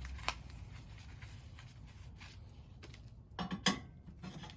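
Light metallic clinks and knocks of a baffle wrapped in aluminium tape being packed into the exhaust tip. There is a single click just after the start, then a short cluster of knocks about three and a half seconds in, the loudest sound here.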